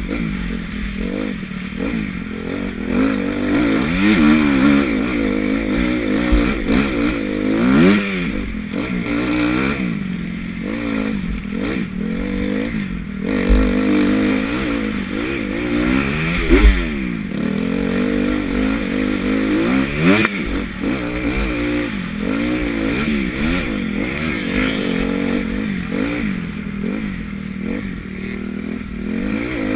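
Honda CRF250 motocross bike's engine heard from the rider's helmet, revving up and falling back over and over as he opens and closes the throttle and shifts. A few short low thumps cut through the engine.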